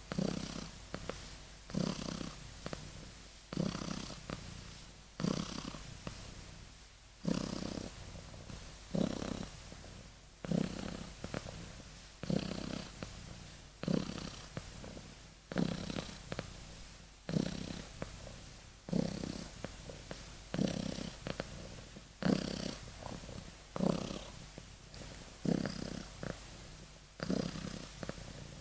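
Sleeping kitten snoring: a short snore on each breath, repeating evenly about once every second and a half to two seconds.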